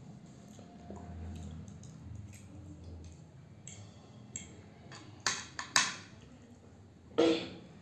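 Metal fork and spoon scraping and clinking against a plate while twirling noodles, with three sharp clinks in the second half, the last one the loudest.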